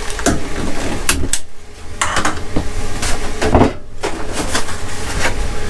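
Irregular knocks and clatter of a cupboard and cookware being handled, over a steady low rumble.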